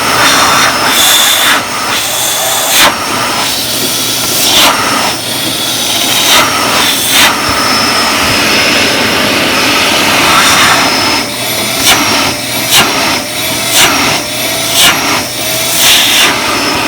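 Kärcher wet-and-dry vacuum cleaner running loudly with a steady motor whine and rush of air, broken by repeated sharp surges of sucking noise, several in the second half, some ending in a short rising whistle. Strong suction.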